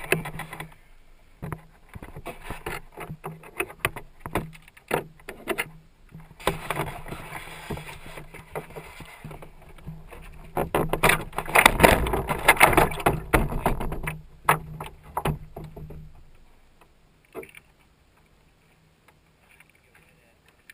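Water sloshing and knocking against the hull of an RC boat, picked up by a camera mounted on its deck, over a steady low hum. The splashing is loudest around the middle and dies away to near quiet about sixteen seconds in.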